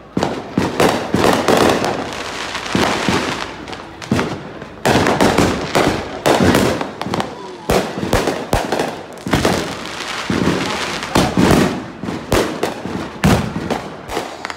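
Several consumer aerial fireworks going off at once: a dense barrage of sharp bangs and crackling bursts, with loud reports scattered throughout.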